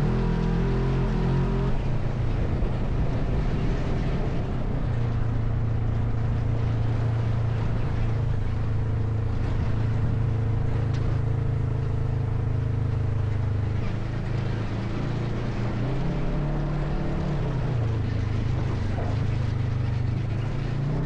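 ATV engine running steadily under way. Its note drops about two-thirds of the way through, then rises and falls again with the throttle.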